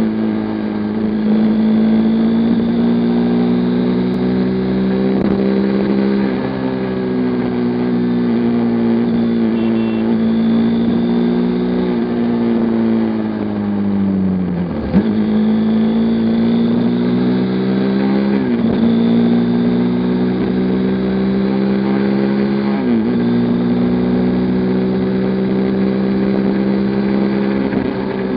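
Sport motorcycle's engine running at road speed, heard from the rider's position. Its note drifts slowly, then dips sharply and picks up again three times: about halfway through and twice more over the next eight seconds.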